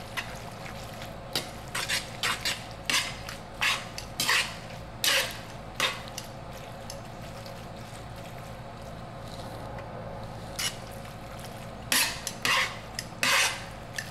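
Metal tongs clinking and scraping against a stainless steel frying pan as noodles in sauce are tossed, in two clusters of sharp clinks with a quieter stretch between. A steady low hum runs underneath.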